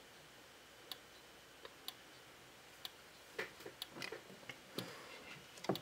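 Wheelock MT24 strobe flashing, with a sharp tick about once a second as each flash fires. Some fainter irregular noises come in the second half.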